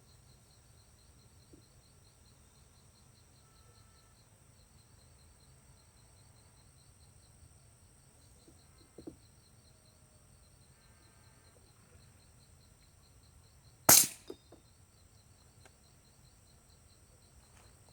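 Crickets chirping faintly and steadily, with one sharp, loud knock about fourteen seconds in and a smaller click around nine seconds.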